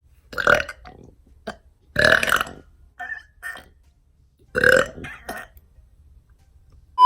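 A person burping loudly three times, about half a second, two seconds and nearly five seconds in, with a few shorter, quieter sounds between.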